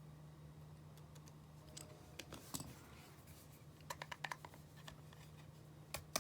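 Faint clicks and light taps of a small screwdriver and the metal bracket going onto an iPhone 5: a few ticks about two seconds in, a quick run of clicks around four seconds, and more near the end, over a low steady hum.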